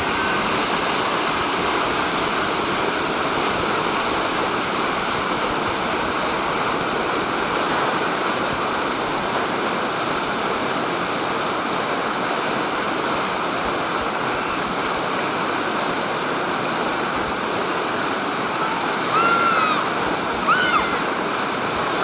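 Whitewater rapids rushing steadily. A few short high-pitched calls rise and fall near the end.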